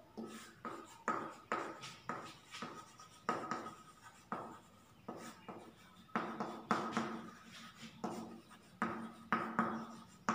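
Chalk writing on a chalkboard: a run of short, sharp taps and scrapes, roughly two a second, with a brief lull in the middle.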